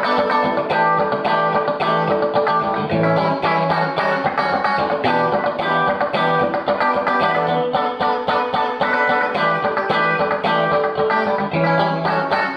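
Clean electric Stratocaster-style guitar played with fast rhythmic picking and chord strums through a Fender The Bends compressor pedal, which holds every note at the same level.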